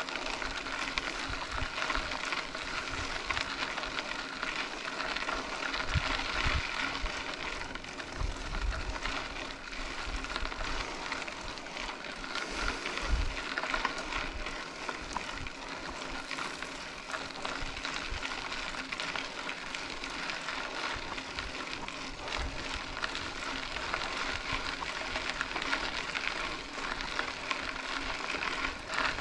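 Mountain bike rolling along a dirt road: a steady crackling hiss of the tyres over gravel, with scattered low thumps.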